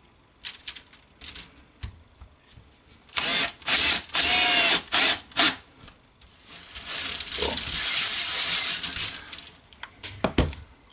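Würth cordless screwdriver driving a screw through a turntable bearing plate into an oak board. It runs in several short bursts with a brief whine, then in a longer run. A few light clicks of handling come before it.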